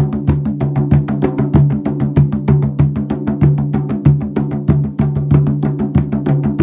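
Drum playing: a fast, even run of strokes, about six or seven a second, over a steady ringing low pitch, with sharp clicking attacks.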